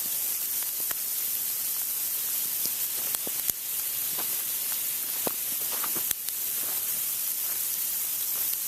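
Heavy sleet falling: a steady hiss with scattered sharp ticks of ice pellets striking.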